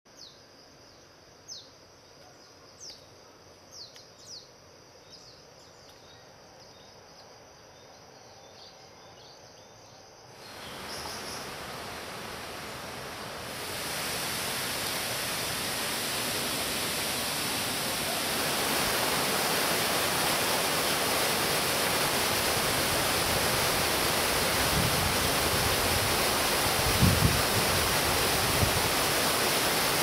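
A few short, high, falling bird chirps over a faint forest background. From about ten seconds in, the steady rush of a 35 m waterfall comes in, growing louder in steps until it fills the sound by about twenty seconds. A couple of low thumps come near the end.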